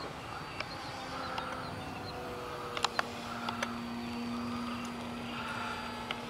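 Faint steady hum of the E-flite X-VERT's twin electric motors in flight, over a steady hiss, with a few sharp clicks about three seconds in.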